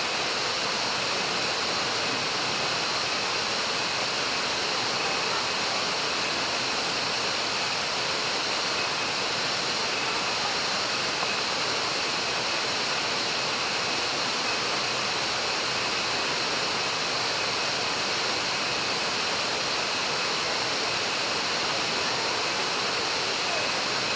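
Steady, unbroken rush of falling water from the Banyumala waterfall.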